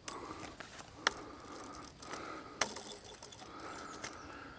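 Light metallic clinks from handling the steel spinning targets and their bolts on the wooden post: three sharp clicks spread over a few seconds, the last followed by a faint high ring.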